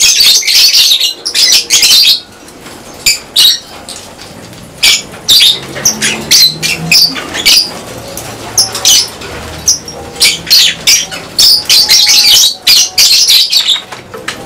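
A colony of lovebirds chattering and calling in high, sharp chirps and squawks. The calls come thick and overlapping in the first two seconds and again near the end, with scattered single calls in between.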